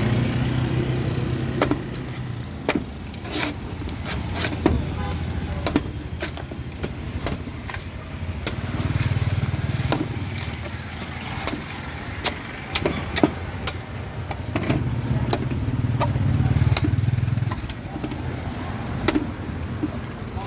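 Coconut being peeled with a knife: a series of sharp, irregular cutting and knocking strikes on the husk and shell, about one or two a second. Underneath, a low motor hum swells and fades three times.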